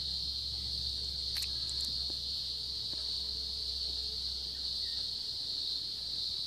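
A steady high-pitched insect drone with a low hum beneath it, and two faint clicks about a second and a half in.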